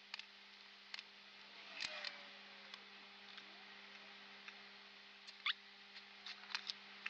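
Faint, irregular clicks and ticks of small tools working on a preamp circuit board while a capacitor is taken out, over a steady low electrical hum.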